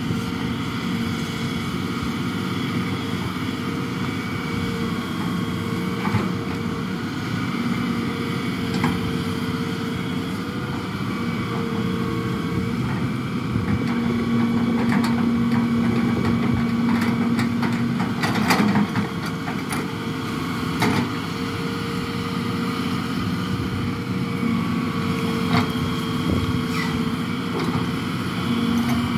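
Excavator diesel engine and hydraulics running steadily, with a louder, steadier drone for a few seconds midway as the machine works. Scattered sharp knocks and cracks of timber being handled, the loudest about two thirds of the way through.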